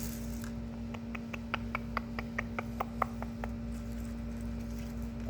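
A quick run of about a dozen light, sharp tapping clicks, starting about a second in and stopping after about two and a half seconds, over a steady low electrical hum.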